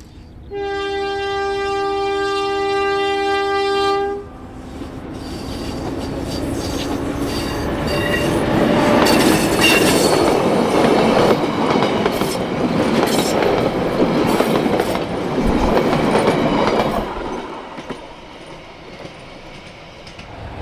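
English Electric Di-class diesel locomotive Di 1102 sounds its horn in one long steady blast of about three and a half seconds as it nears the level crossing. It then runs past with its carriages: the rumble of the train and the clickety-clack of wheels on the rails build to a peak and fade away near the end.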